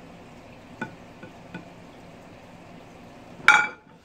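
Metal serving spoon working a soft, wet portion of chicken pie on a plate, with a few light taps and then one loud ringing clink of the spoon against the plate about three and a half seconds in.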